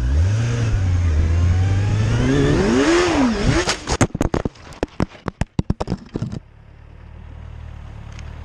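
Motorcycle engine revving up, its pitch climbing and then dropping about three seconds in. From about three and a half seconds a rapid series of sharp impacts and clatter follows as the bike crashes and tumbles, stopping suddenly after about six seconds and leaving a low steady hum.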